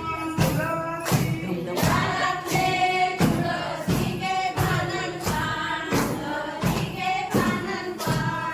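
A group singing a fugdi folk song together, keeping time with sharp beats at about two a second.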